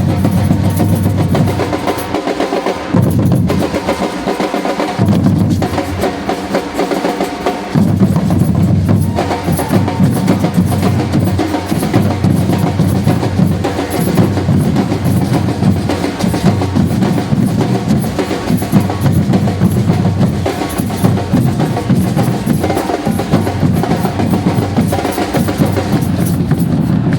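A group of drums, bass drums and snare drums, playing a loud, driving rhythm with snare rolls. The deep drums drop out briefly a couple of times in the first several seconds.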